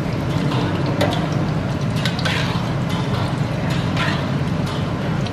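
Dried red chillies frying in shallow oil in a steel wok, stirred with a metal spatula that scrapes the pan now and then, over a steady low rumble from the gas burner.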